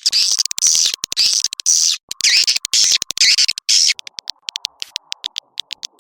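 Swiftlet lure call: two bursts of dense, buzzy twittering with rising and falling chirps, then a fast run of short clicks through the second half. This is the kind of recording played at swiftlet houses to attract wild swiftlets to nest.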